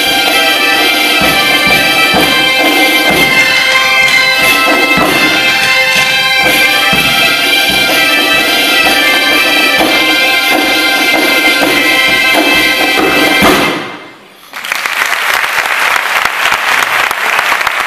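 A Galician bagpipe band, gaitas with drums and tambourines, playing the last bars of a tune, which stops about fourteen seconds in. After a short pause the audience applauds.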